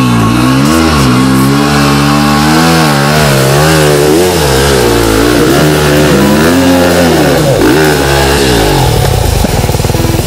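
Enduro dirt bike engine revving up and down again and again under load on a rocky climb. Near the end the revving gives way to a steadier, even buzz.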